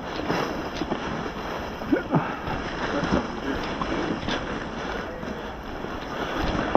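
Steady wind rumble on the microphone, with scattered sharp clicks and knocks through it.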